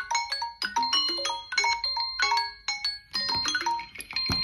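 Smartphone alarm and timer tones ringing, a dense overlapping run of short, bright pitched notes like chimes and mallet tones.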